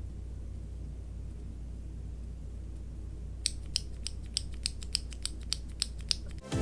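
A steady low hum, then, about three and a half seconds in, a Cherry MX mechanical key switch pressed over and over in quick succession, giving a fast run of sharp clicks at about six or seven a second that stops shortly before the end.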